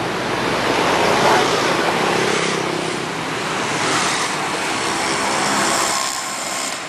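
Road traffic passing close by: vehicle engines and tyre noise swelling and fading several times.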